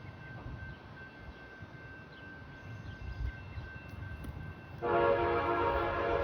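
Train horn blasting suddenly near the end, a loud held chord of several tones, over a low rumble.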